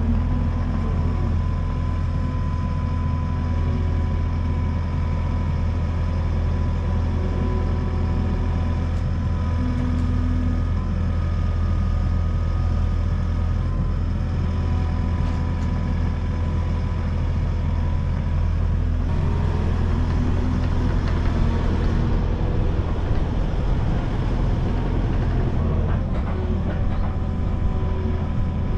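Skid steer engine running steadily with a deep hum.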